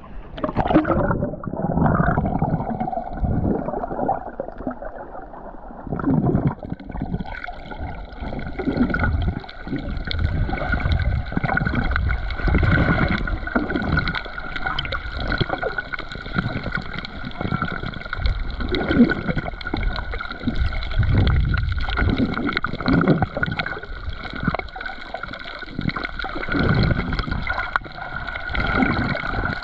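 Water gurgling and sloshing, heard muffled through a camera held underwater, with low surges every second or two. From about seven seconds in a steady high-pitched hum joins it and holds to the end.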